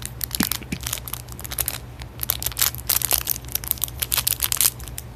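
A crinkly plastic blind-bag packet being handled and torn open by hand: a run of irregular crackles and rustles, loudest about three seconds in and again near the end.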